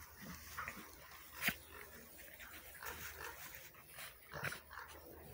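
Puppies and small dogs play-fighting, giving short yips and small barks, the sharpest about a second and a half in and again near four and a half seconds.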